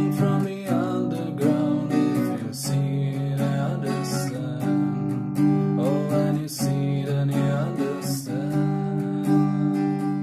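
Acoustic guitar strummed in full chords with a steady rhythm.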